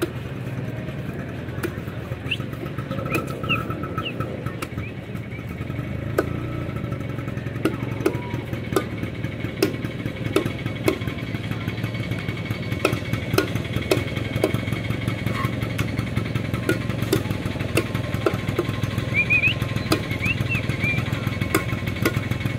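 Heavy cleaver chopping through a freshwater eel into a wooden chopping block, with sharp knocks coming about once or twice a second from about six seconds in. A steady low engine-like drone runs underneath.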